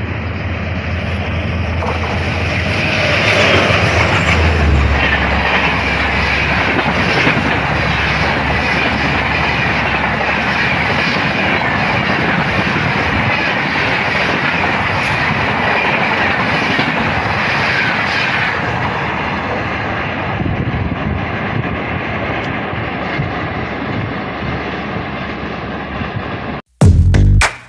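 Express train, most likely the Madgao Rajdhani hauled by twin WDM-3A diesel locomotives, running through the station at speed. A steady low engine drone builds and passes in the first few seconds, then a long rake of coaches rumbles and clatters by, thinning out towards the end. It cuts off abruptly just before the end as loud electronic music starts.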